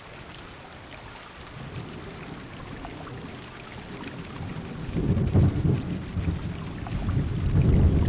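Heavy rain pattering on a car window with thunder rolling in: a low rumble builds and swells loudest about two-thirds of the way through and again near the end.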